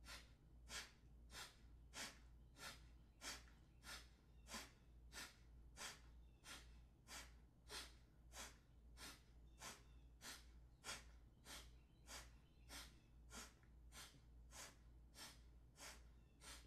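Alternate-nostril Kapalabhati breathing: short, forceful exhales through the nose, one nostril held closed by the fingers, evenly paced at about three every two seconds and faint.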